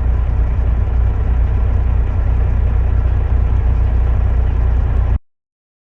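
Grain truck's engine running with a steady low rumble, heard from inside the cab. It cuts off suddenly about five seconds in.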